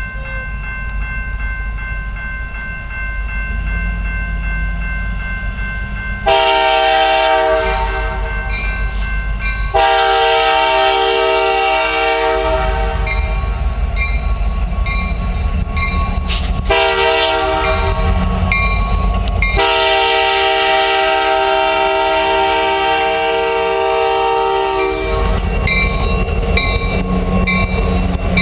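CN freight diesel locomotive approaching a grade crossing, its engine rumbling while it sounds its horn in a series of short and long blasts. The last long blast ends about 25 s in. Near the end, as the locomotive passes close by, a crossing-signal bell dings repeatedly.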